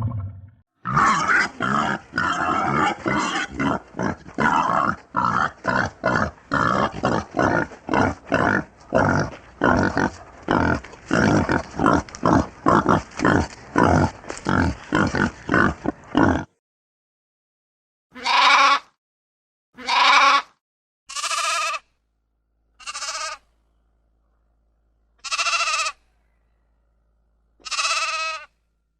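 Animal calls: about fifteen seconds of quick short calls, roughly two a second, then six separate pitched calls, one every second or two.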